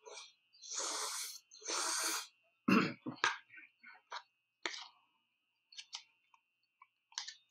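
Close-up eating sounds: noodles slurped in two long draws, then chewing with sharp mouth clicks and smacks.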